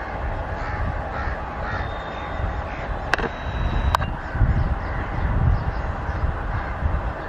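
Birds calling repeatedly over a steady low rumble, with two sharp clicks about three and four seconds in.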